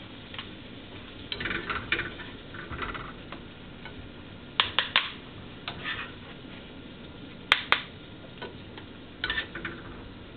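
Metal cooking utensil clinking and scraping against a pot in irregular clusters of sharp clicks and short scrapes.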